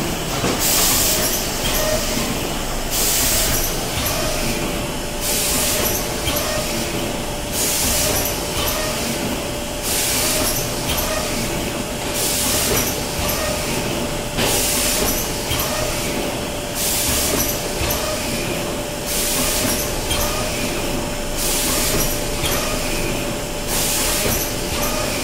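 Automatic hardcover case-making machine running, a steady mechanical rumble with a constant mid-pitched whine, and a short sharp hiss of air repeating about every two seconds as its air-line pick-up heads cycle.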